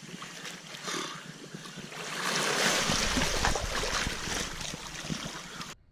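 Water splashing and churning as a person wades waist-deep and then plunges under the surface; the splashing grows about two seconds in, is loudest for a couple of seconds and then eases off.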